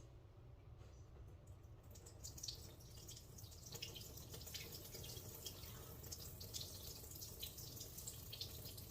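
Water draining and dripping from freshly washed elderberries in a strainer, a faint patter of drips that starts about two seconds in.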